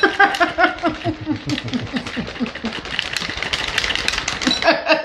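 Handheld shaker bottle being shaken hard and fast to mix a powdered drink, its contents rattling in rapid repeated clacks.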